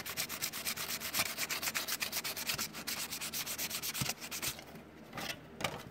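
Sandpaper rubbed quickly back and forth over a sheet of styrene plastic, about six strokes a second, roughing the surface so glue will hold. The strokes stop about four and a half seconds in, then a couple more follow.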